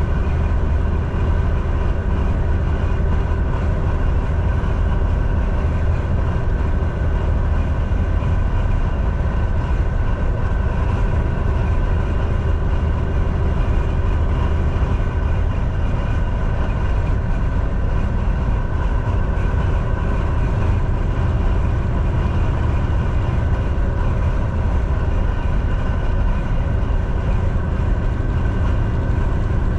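Semi truck driving at a steady pace on the interstate: a constant low drone of diesel engine and tyre and road noise, with a faint steady whine above it and no change throughout.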